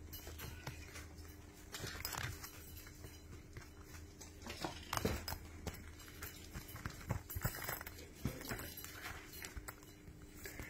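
Kittens scrambling about in a mesh-sided playpen: irregular soft taps, knocks and rustles over a steady low hum.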